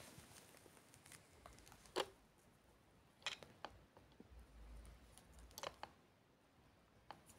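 Near silence, with a few faint, separate clicks and taps of handling as the stones and camera are moved.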